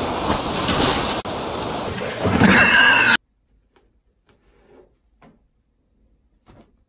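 Strong wind gusting hard on a doorbell camera's microphone, surging louder near the end of its run and then cutting off abruptly a little over three seconds in. After it, a few faint soft taps and rustles as a cat paws a towel off a bathroom counter.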